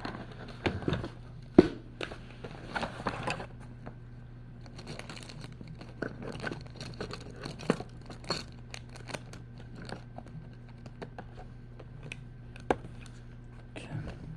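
Paper rustling and crinkling with scattered light clicks and scrapes, over a steady low hum.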